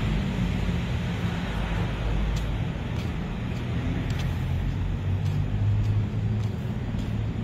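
Steady rumble of city road traffic: a low hum with an even hiss above it.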